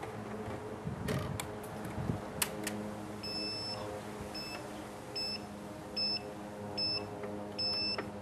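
Turnigy 9X radio transmitter: a few plastic switch clicks as its toggles are flipped, then about six short, high, two-tone electronic beeps roughly every three-quarters of a second, the first and last held a little longer.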